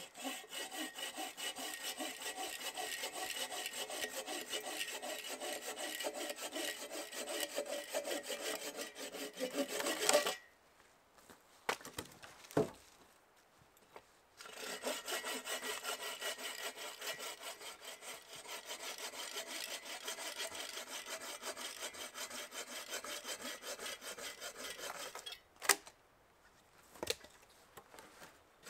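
Bow saw cutting a dead log for firewood in quick back-and-forth strokes. The sawing stops about a third of the way in, with a few sharp knocks in the pause, then resumes, and stops again near the end with two sharp knocks.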